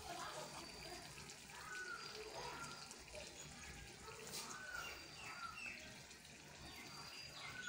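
Curry simmering in a pan on a gas stove, bubbling faintly with small scattered pops.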